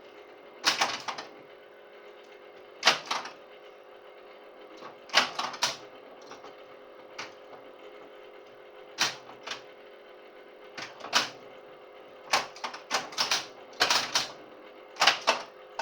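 1972 Bally Space Time electromechanical pinball machine in play: irregular sharp clacks and bursts of clicking from the flippers, targets, relays and score reels, over a faint steady hum.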